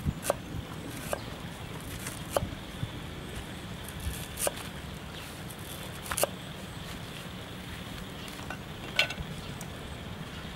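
Cleaver knocking on a round wooden chopping block while chopping garlic: a few sharp, irregular knocks a second or two apart, over a steady hiss.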